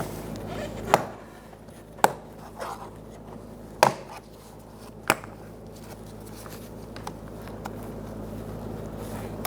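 Sharp plastic clicks as a trim tool pries a small plastic corner trim piece off the inside of a Honda CR-V's front door, the clips letting go: four separate snaps over about four seconds, then a further one near the end.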